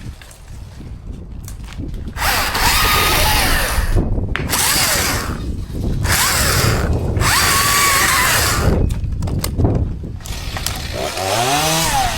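Chainsaw running at full throttle in three long cutting bursts, easing off between them, then revving up again near the end.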